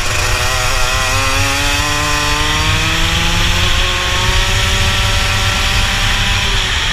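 Rotax two-stroke kart engine at full throttle, its pitch climbing steadily as the kart accelerates down a straight, then dropping off near the end as the driver lifts off.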